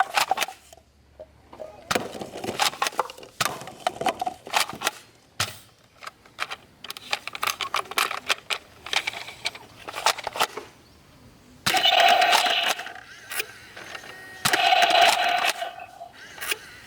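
Clicks and rattles of plastic toy guns being handled, then a toy gun sounding three times, each a steady buzzing tone lasting about a second.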